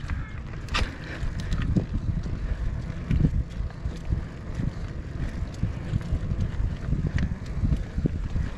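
Wind buffeting the action camera's microphone as a mountain bike is ridden, a fluttering low rumble, with scattered clicks and rattles throughout.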